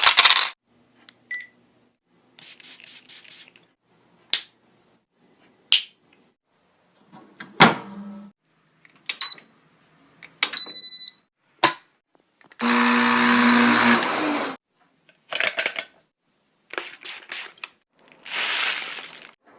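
A rapid series of short, varied sound effects: bursts of hissing, sharp clicks, a few high beeps near the middle, and a longer buzzing whir about two-thirds of the way through.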